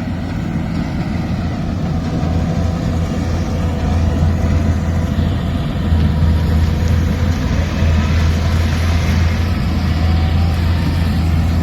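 Diesel engine of a farm machine running steadily with a deep, even hum, getting a little louder about four seconds in.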